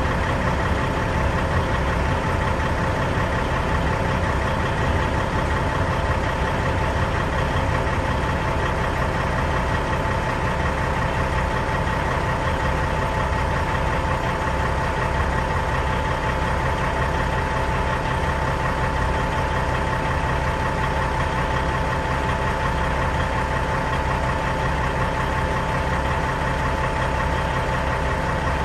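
Heavy-duty diesel engine of a 1999 Kenworth W900L truck idling steadily to build up air-brake pressure, with a steady whine on top.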